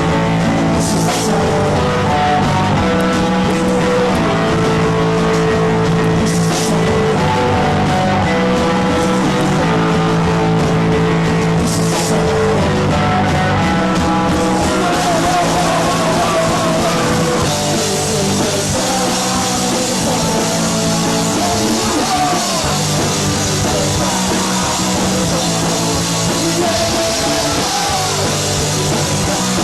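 Live punk rock band playing loud: electric guitars, bass guitar and drum kit. Held guitar chords with a crash cymbal hit about every five to six seconds, then from a little past halfway the cymbals ride continuously and the playing grows busier.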